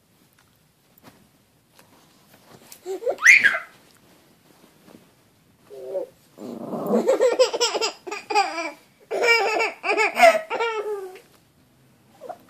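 A dog vocalizing and a baby laughing and squealing. A short rising-and-falling cry comes about 3 seconds in, then a longer run of wavering calls from about halfway to near the end.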